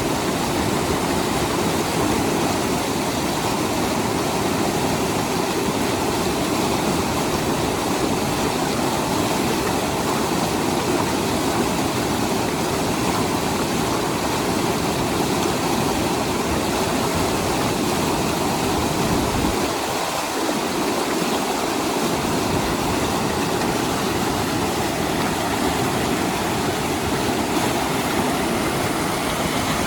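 The glacier-fed Lidder River running fast, a steady, unbroken rush of water. The deepest part of the sound drops away briefly about two-thirds of the way through.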